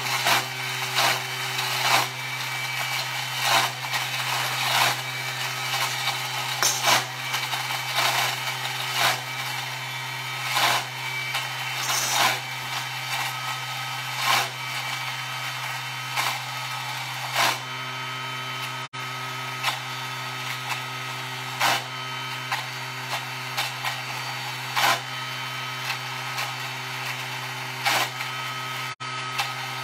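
A Thermomix TM6 runs at its top blending speed (speed 9), pureeing hot cooked vegetables into stock paste. The motor hums steadily and loudly, with sharp knocks coming about once a second as the blend goes on.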